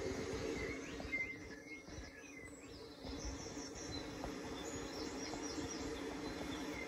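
Short high chirps, bird-like, scattered over a steady low hum and background noise, with a brief knock about a second in.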